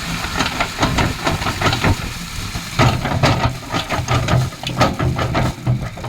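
Heavy machine's diesel engine running, with irregular hissing and clattering strokes several times a second.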